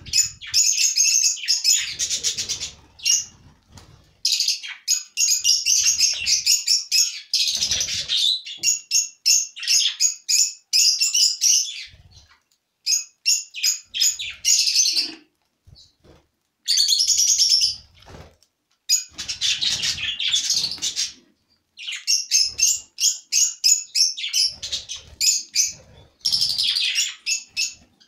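A flock of budgerigars chirping in fast, dense runs that stop and start, with a few short pauses around the middle.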